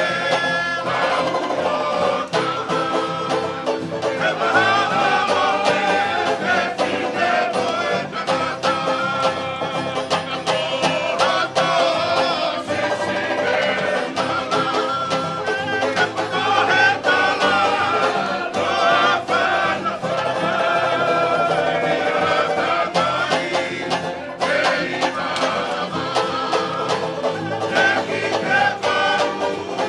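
Live Tongan string band playing tau'olunga music: acoustic guitar and banjo strummed in a steady rhythm, with voices singing the melody.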